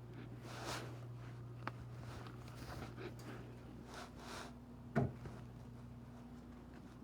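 Faint rustling and handling noises from someone moving about and searching by hand, with one sharp knock about five seconds in, over a steady low hum.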